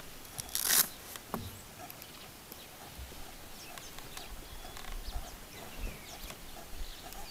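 African elephants feeding among trees and dry brush: a loud, short rasping crash just under a second in, then scattered snaps and knocks, with faint bird chirps and a low rumble in the background.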